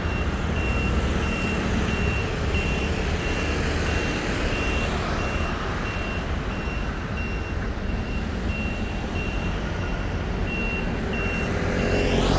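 A high electronic warning beep repeating steadily, somewhat under twice a second, over a steady low rumble of machinery. A louder swell of noise builds near the end.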